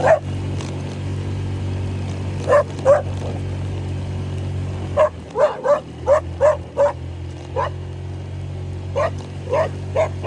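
Dogs barking at a passing scooter: two barks a few seconds in, a quick run of about seven barks in the middle, and more near the end, over the steady hum of a 125 cc Honda scooter engine.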